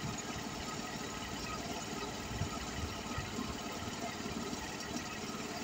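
Steady mechanical drone with faint high whining tones over it.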